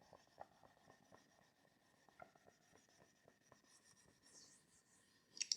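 Near silence with faint, scattered ticks and scratches of writing, and a brief louder rustle just before the end.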